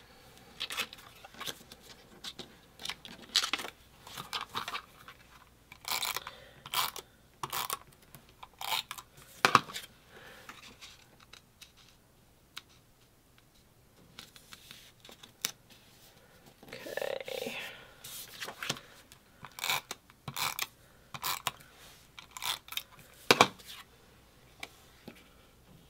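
Paper pieces being handled, slid and pressed down on a scrapbook page: irregular rustles, taps and light scrapes of cardstock, with one longer rustle about two-thirds of the way through.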